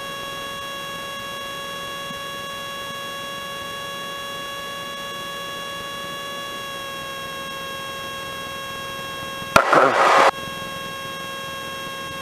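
Steady in-flight drone of a Robin DR400 light aircraft's engine and propeller inside the cockpit, with a steady whine of several even tones over a noise bed. A brief loud burst of noise comes about ten seconds in.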